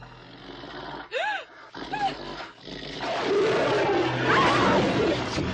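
Horror-film soundtrack of a rabid St. Bernard attacking: two short rising-and-falling cries about a second apart, then from about three seconds in a loud, dense burst of snarling and struggle.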